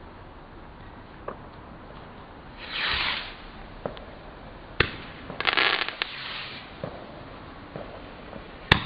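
Fireworks going off: a hissing crackle about three seconds in, a sharp bang, then a longer crackling burst, and a loud single bang near the end, with a few small pops between.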